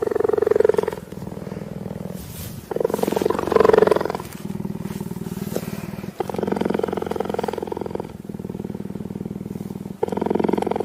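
Cheetah purring loudly while being stroked, a continuous rough rumble that swells and eases with each breath in and out.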